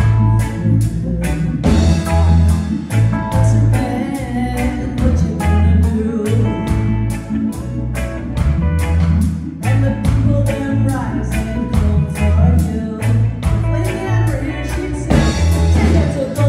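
Live reggae band playing: a woman sings lead over electric guitar, bass and drums, with a steady beat.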